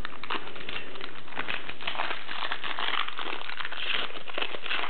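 Gold foil wrapper of a 1998-99 Flair Showcase basketball card pack crinkling in a quick series of crackly rustles as it is torn open by hand.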